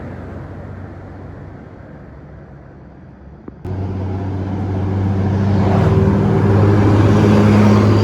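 Bus diesel engine pulling up a hill, drawing closer and growing steadily louder. It starts abruptly about three and a half seconds in, after fainter road noise.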